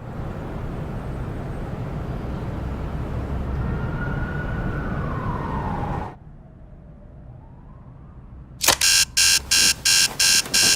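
A steady rumbling noise with a siren tone sliding down in pitch, cut off suddenly about six seconds in. Near the end, loud beeping in short rapid pulses, about three a second.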